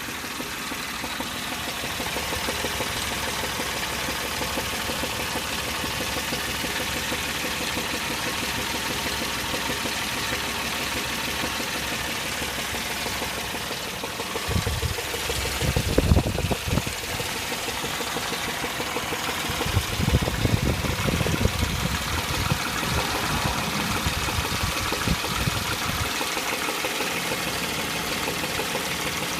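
2003 Chevy Tracker (Suzuki Grand Vitara) engine idling with a low-pitched, slightly hollow knock that is not quite evenly timed. Louder low rumbles come twice about halfway through.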